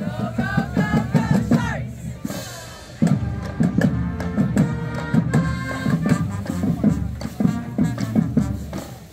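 High school marching band playing as it marches: a drumline beats a steady cadence, with brass and saxophones over it. The music drops back briefly and the full band comes in loudly about three seconds in.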